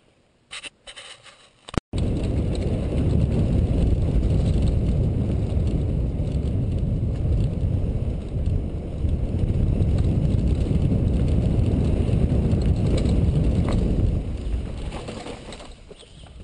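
Mountain bike ridden at speed on a dirt forest trail. A few clicks and rattles in the first two seconds are followed by a loud, low rumble of wind buffeting the microphone and tyres running over dirt, which eases off near the end.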